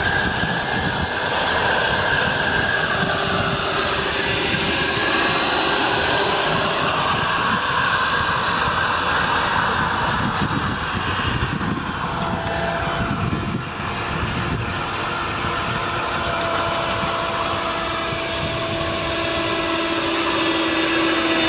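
Twin electric ducted fans of a homemade RC jet boat running at speed: a loud whine over a rushing noise. The whine's pitch wavers with throttle in the first half, then settles into steadier tones later.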